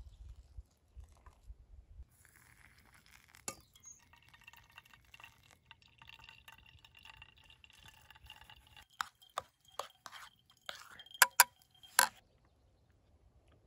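Hot water poured from a camping cook pot in a steady stream for several seconds, then a metal spoon stirring oatmeal in a ceramic bowl and clinking sharply against its side several times near the end.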